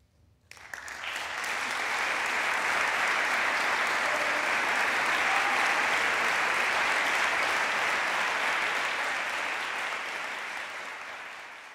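Audience applauding: the clapping breaks out suddenly about half a second in after a hush, builds within a second into steady applause, and fades near the end.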